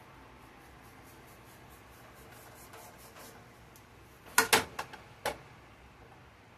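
Onion slices being pulled apart into rings by hand on a plate: faint light ticking and crackling at first, then a quick cluster of sharp clicks and knocks against the plate about four and a half seconds in and one more a moment later.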